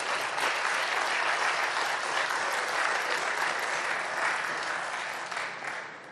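Applause from the members of parliament, dense and steady, fading away over the last second or so.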